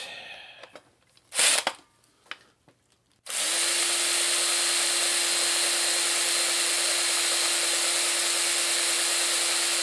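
Cordless drill spinning a Ford 289 V8 distributor's shaft through a long extension, running at one steady speed from about three seconds in; it drives the points open and closed so the dwell can be read. A couple of short handling knocks come before it.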